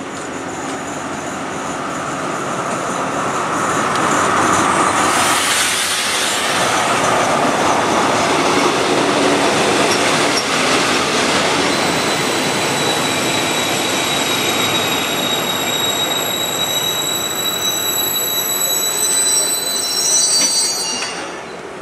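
Diesel-hauled passenger train rolling into a station platform, loudest about five seconds in as the locomotive draws level. From about halfway the coaches' braking wheels add a high, steady squeal of several tones, which cuts off shortly before the end.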